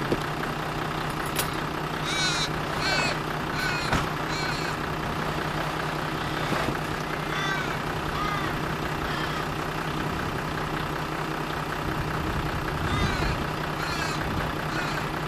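An engine idling steadily with an even low hum, while birds call in short arched calls several times over it.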